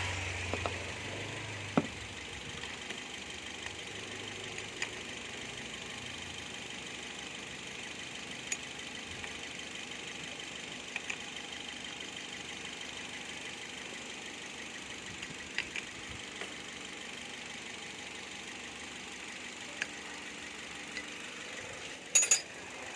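2014 Toyota Vios engine idling steadily, with scattered light clicks and a short clatter near the end.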